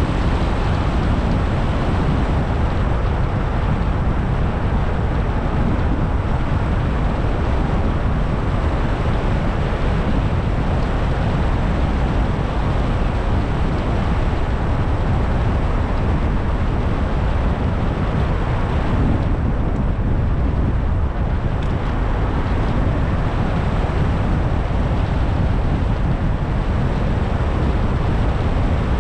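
Steady road and wind noise of a car being driven, with the higher hiss easing briefly about twenty seconds in.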